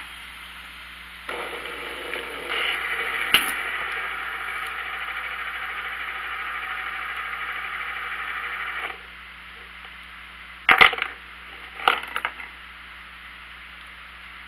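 Metal fidget spinner whirring steadily on a wooden floor for several seconds, then stopping suddenly. A couple of sharp clacks follow as a cat paws at it and knocks it against the boards.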